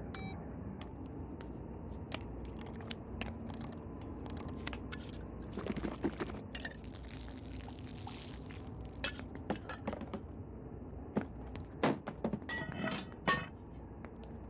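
Liquid pouring from a glass jar for about two seconds, midway through, among scattered small clicks and knocks; a few sharper knocks and clinks near the end.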